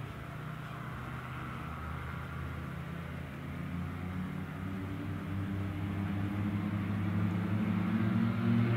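Twin propeller engines of a small amphibious aircraft droning steadily, growing louder as the aircraft comes in low for a touchdown.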